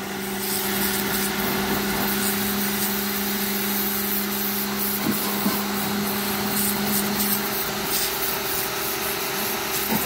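Lavor 1800 W electric pressure washer running: a steady motor-and-pump hum under the hiss of the high-pressure water jet spraying onto clay roof tiles. The deeper part of the hum drops away near the end.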